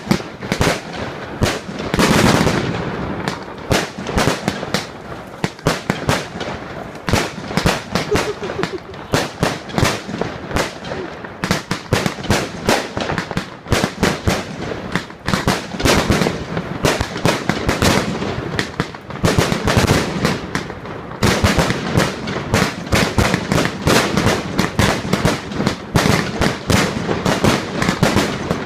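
Fireworks going off in a dense, continuous barrage of bangs and crackles with no pause.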